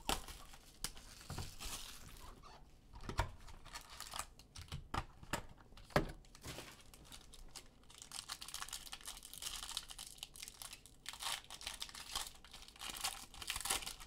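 Plastic wrap and foil wrapper of an Obsidian football card box being torn open and crinkled by hand. There are a few sharp clicks from handling the box in the first six seconds, then a steadier crinkling rustle from about eight seconds on as the foil pack is ripped open.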